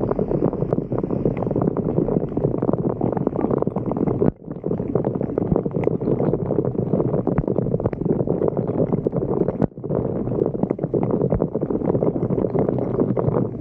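Water churning and gurgling, a dense crackling rush that cuts out abruptly twice.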